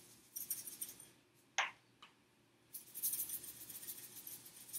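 Hand pepper grinder being twisted over a pot, a faint fine crackling grind, then a single sharp knock about a second and a half in. From near the middle, salt shaken from a shaker makes a faint fast rattle for about two seconds.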